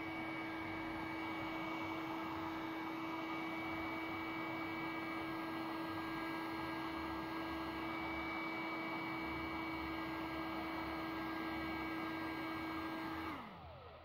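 Electric heat gun running: a steady whir of its fan and rushing air with a strong hum. Near the end it is switched off, and the hum falls in pitch as the motor winds down.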